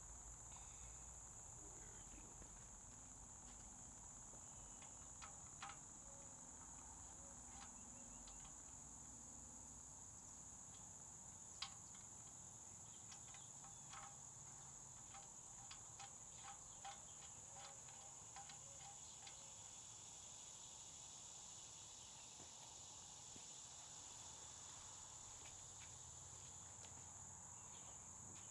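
Faint, steady, high-pitched insect trill, with scattered light clicks and one sharper tick about twelve seconds in.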